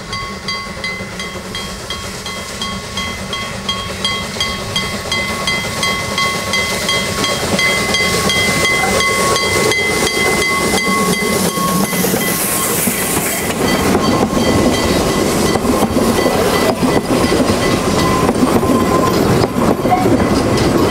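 Saxon IV K narrow-gauge steam locomotive 99 582 approaching with a train, its exhaust chuffing in a steady beat and a steady high tone heard over it, getting louder. About twelve seconds in there is a loud hiss of steam as the locomotive passes, with steam venting at the cylinders, and then the coaches clatter past over the rail joints.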